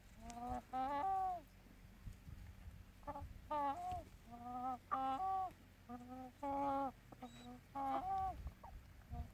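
A bird calling over and over in short pitched calls, each a low note jumping to a higher one, repeated every second or so.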